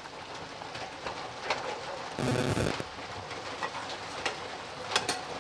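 Sardine curry simmering in a pan on the stove, a steady crackly bubbling with scattered light clicks. About two seconds in comes a louder rushing scrape lasting about half a second.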